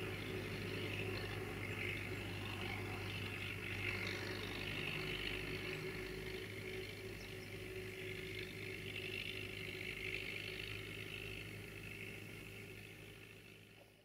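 UTB U650 tractor's four-cylinder diesel engine running steadily, faint and distant, fading out near the end.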